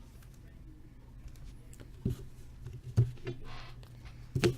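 Trading cards and card packs being handled on a table: a few soft knocks and a brief rustle over a steady low room hum.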